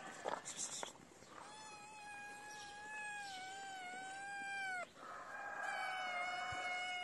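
Street cat meowing for food: two long, drawn-out cries, the first lasting about three and a half seconds and dipping in pitch as it ends, the second starting about five seconds in. Brief rustling and clicks in the first second.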